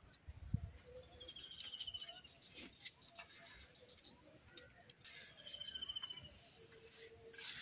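A high, fast trilled call of about a second, heard twice about four seconds apart. Under it are faint scrapes and taps of a hand gathering ground biscuit powder off a stone grinding slab.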